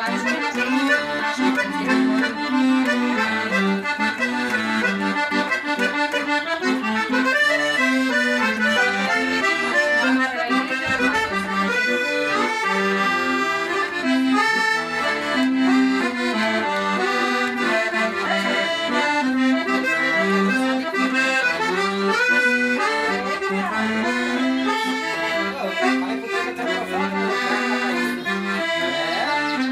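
Accordion (sanfona) playing a traditional tune: a melody over a repeating bass pattern, with no pause.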